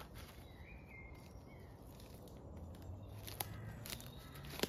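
Quiet woodland ambience: faint outdoor background noise with a short warbling bird call about half a second in, a low hum in the second half, and a couple of light clicks near the end.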